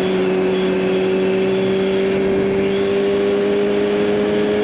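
2009 Kawasaki ZX6R's inline-four engine running through a Hotbodies MGP Growler slip-on exhaust at a steady cruise, its note holding almost level with a slight rise.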